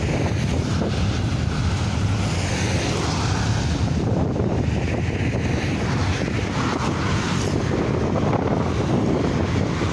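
Wind buffeting the microphone over the steady rumble of a long freight train of covered hopper wagons rolling past, with road traffic going by.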